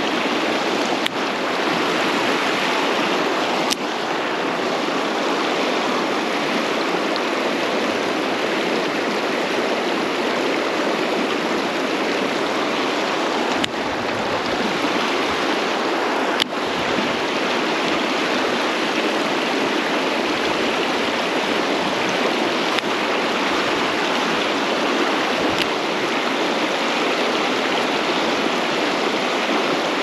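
Mountain stream running steadily, with a few faint clicks scattered through.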